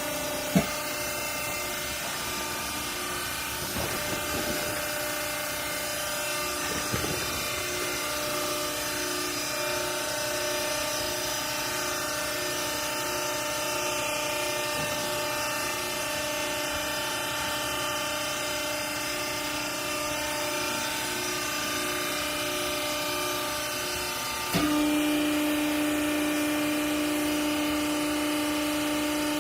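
Hydraulic clothing baler's electric motor and pump running with a steady mechanical hum. A sharp click comes about half a second in, and about 25 s in there is a knock, after which the hum becomes louder and slightly lower in pitch.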